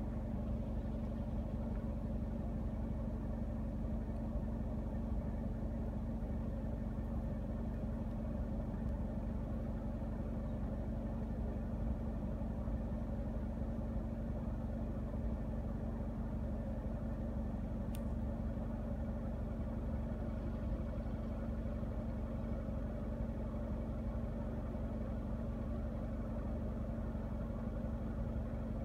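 Steady low hum of an idling engine, with a constant tone that never changes.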